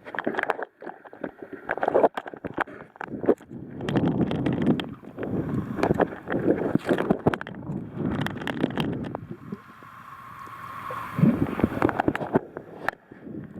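Water splashing and gurgling around a kayak, with scattered short knocks and irregular surges of sloshing.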